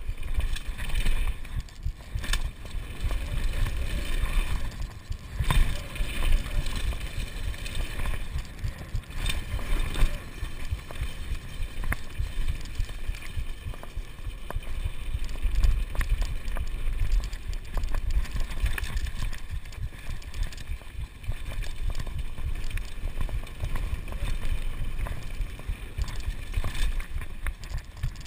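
Kona Supreme Operator downhill mountain bike ridden fast down a dirt jump trail: tyres on loose dirt, with the bike rattling and many short sharp knocks over bumps and landings. Heavy wind rumble on the microphone.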